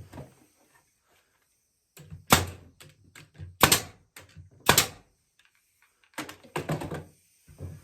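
Sharp knocks on the wooden frame of a sourwood chair as its rungs and posts are struck and fitted together: three loud knocks about a second apart, then a quicker cluster of knocks near the end.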